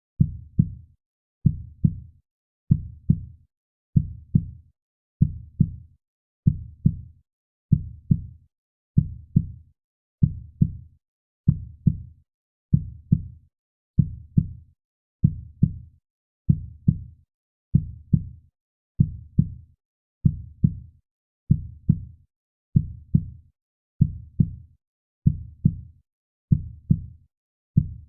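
Heartbeat sound effect: a slow, steady lub-dub, two low thuds close together, repeating about every 1.3 seconds.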